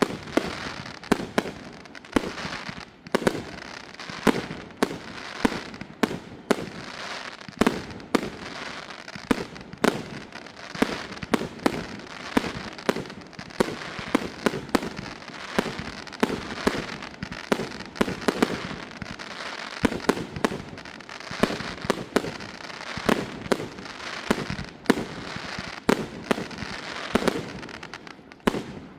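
Fireworks display: sharp bangs of shells bursting, roughly two a second, over a continuous crackle, dying away at the very end.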